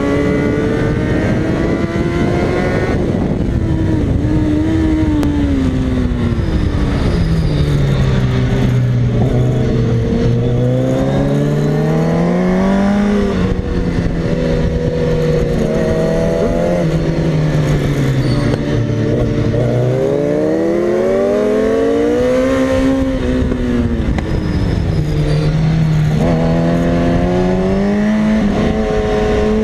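2004 Kawasaki ZX-10R's inline-four engine heard onboard at track speed, its revs climbing and dropping again and again through acceleration, gear changes and braking for corners, with a steady rush of wind over the microphone.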